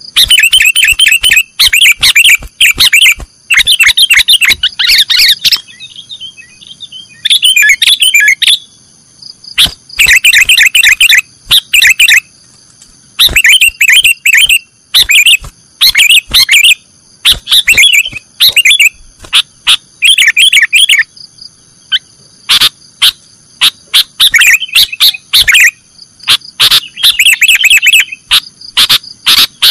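Sooty-headed bulbul (kutilang) song in the 'nggaruda' style: loud bursts of rapid chirps, each about one to two seconds long, repeated with short pauses between them.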